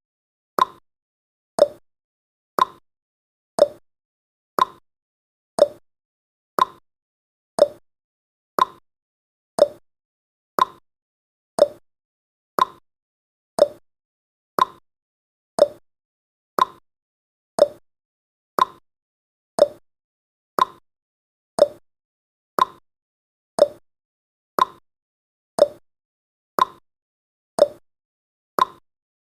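Clock-style tick sound effect of a countdown timer, a short sharp tick once every second with silence between.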